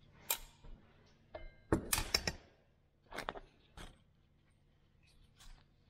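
Light clinks, knocks and scrapes of a metal Defa 411263 engine heater element being picked up and handled on a steel workbench, with a brief metallic ring about a second and a half in and the loudest cluster of knocks about two seconds in.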